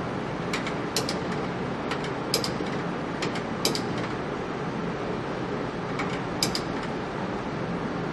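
Steady running hum of a powered-up Gildemeister CTX 400 Serie 2 CNC lathe, with about a dozen sharp clicks, several in quick pairs, over the first four seconds and again about six seconds in.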